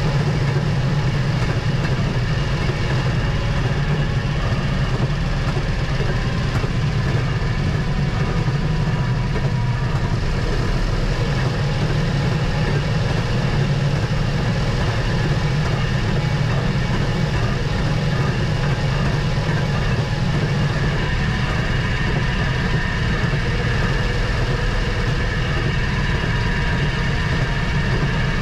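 Rail motorcar (speeder) engine running steadily as the car travels along the track, its wheels rolling on the rails.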